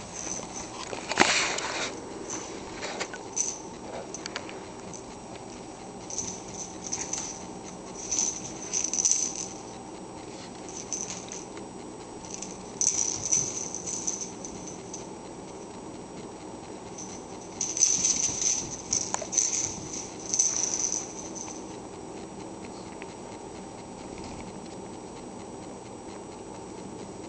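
Two Pomeranians' paws and claws scrabbling and pattering on a rug and tile floor as they play-fight, in several short flurries with quiet stretches between. The sharpest scuffle comes about a second in.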